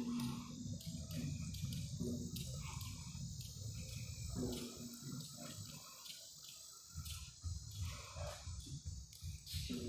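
Insects chirring steadily in the trees over an uneven low rumble.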